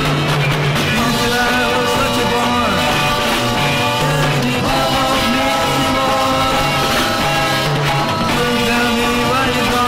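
A 1960s garage-rock record playing: a full band with electric guitar, bass and drums, with singing.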